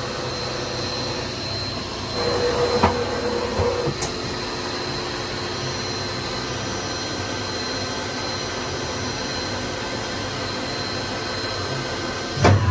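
Matsuura MAM-500HF horizontal machining centre powered up and standing idle: a steady machine hum with a thin high whine. Between about two and four seconds in there is a louder whirring stretch with a couple of sharp clicks. Near the end come a couple of loud clunks.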